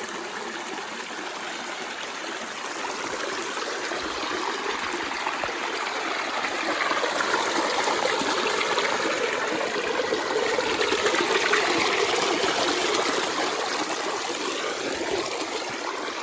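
A stream running over rocks, a steady rush of water that grows louder in the middle and eases off near the end.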